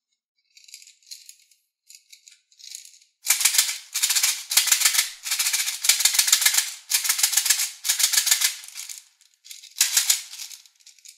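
Small plastic toy baby bottle full of plastic beads being shaken, the beads rattling against the sides. A few faint rattles at first, then loud, dense shaking from about three seconds in, with one more short burst near the end.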